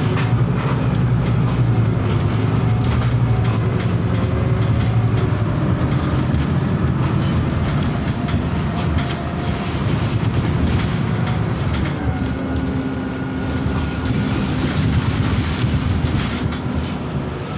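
Cabin noise of a Scania CityWide LF 18 articulated natural-gas city bus under way: a steady engine and road drone with many small rattles from the fittings. The engine note climbs in the first couple of seconds and drops once about twelve seconds in.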